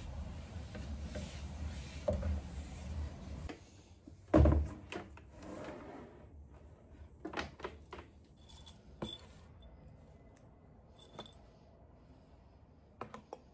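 Household objects being handled while a kitchen island is cleared: a cloth rubbing over the surface, then a knock about four and a half seconds in, followed by scattered clicks and light clinks as appliances and small items are moved.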